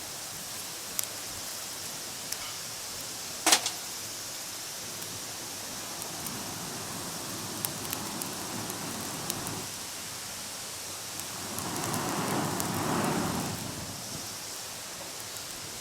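Wood campfire crackling: a steady hiss with scattered small ticks and one loud snap about three and a half seconds in, then a swell of rushing noise for a couple of seconds near the end.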